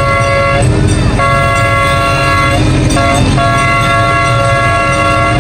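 Miniature train's horn sounding in long held blasts, a steady chord of several tones broken by two short gaps, over the steady low rumble of the train running along the track.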